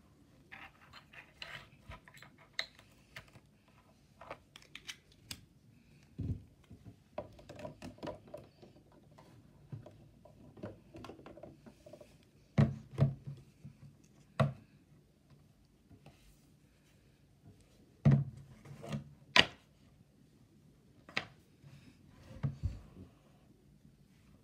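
Slime being squeezed and kneaded between the fingers, giving irregular small crackles and sticky clicks, with several louder pops in the second half.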